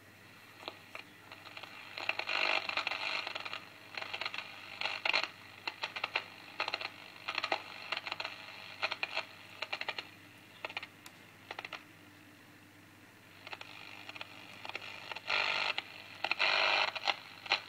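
Early-1960s Philips L2X10T transistor radio being tuned across the band: brief snatches of stations and crackle come and go through its small speaker, with a quieter stretch a little after the middle and two longer snatches near the end.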